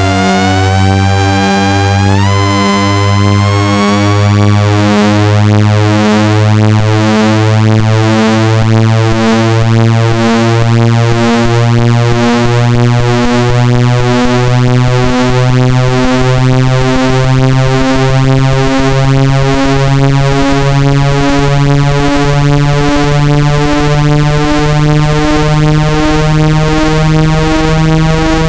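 Synthesized speaker-cleaning tone for pushing water out of a phone speaker: a loud, low buzzing tone pulsing on and off about once a second and slowly rising in pitch. A fainter whistle glides upward over it for the first few seconds.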